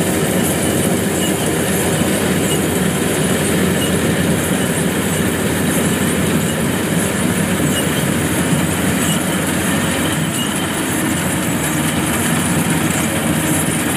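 Kubota DC-105X combine harvester running steadily while cutting and threshing rice: a loud, even mechanical drone of engine and threshing machinery with no breaks.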